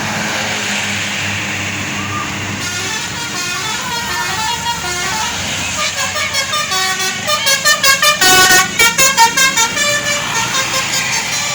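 Tour buses' basuri musical horns playing runs of short stepped notes over a steady low engine hum. The horns start about two seconds in and build into a fast stuttering run of notes, loudest around eight seconds in, then ease off near the end.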